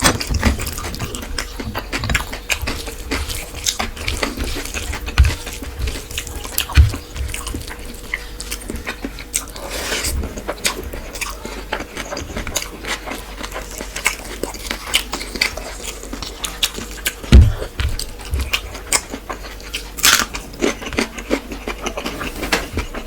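Close-miked eating: steady chewing with a dense run of small wet clicks and smacks, broken by a few dull thumps, the loudest about three-quarters of the way through.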